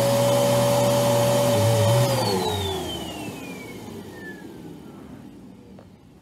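Dirt Devil Breeze bagless upright vacuum cleaner running steadily, then switched off about two seconds in; its motor whine falls in pitch and fades as it spins down.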